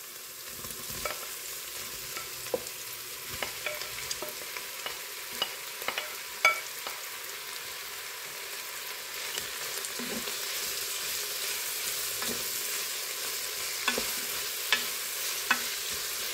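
Strips of tripe sizzling in hot olive oil with a carrot, celery and onion soffritto in a Moulinex Cookeo electric multicooker's inner pot, stirred with a wooden spoon that taps and scrapes against the pot now and then. The sizzle grows a little louder about halfway through.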